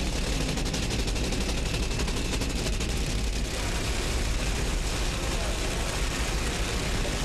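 Nitromethane-burning Funny Car drag-racing engines running with a dense, rapid crackle that holds steady throughout.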